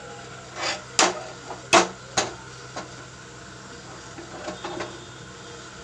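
An iron tawa clunks and knocks against the gas stove's burner grate as the upturned pan, with naan stuck beneath it, is turned over the flame to roast it on all sides. There are several sharp knocks in the first three seconds and a few softer ones near the end, over the low steady hiss of the gas burner.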